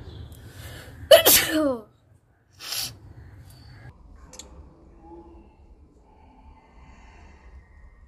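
A woman sneezes loudly once about a second in, a sharp burst that falls away in pitch, followed about a second later by a shorter, breathy burst. The sneezing is set off by screwing a nose pin into her nostril.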